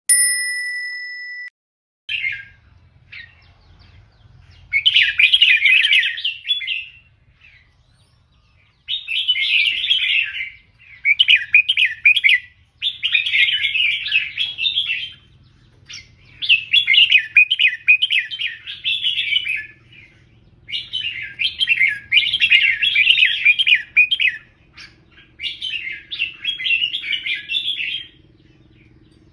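Red-whiskered bulbul singing: short warbling phrases of about two seconds each, repeated around eight times with brief pauses between them. A short steady beep sounds at the very start.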